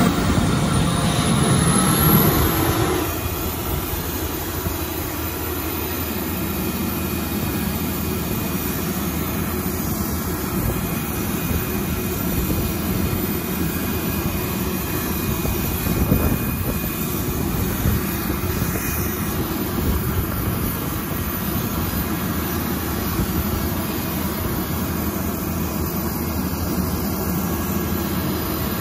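Steady drone of ground power equipment running beside a parked Avro Vulcan, whose engines are not running. A high whine rises during the first couple of seconds, then the drone settles slightly quieter.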